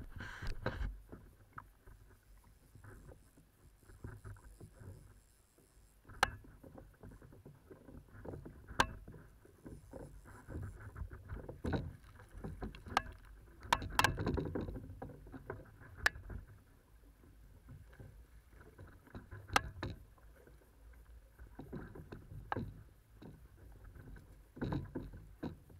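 Water sloshing and splashing against a plastic sit-on-top kayak, with wind on the microphone. A hooked jack crevalle thrashes at the surface beside the hull, louder twice during the fight. Several sharp knocks fall through it.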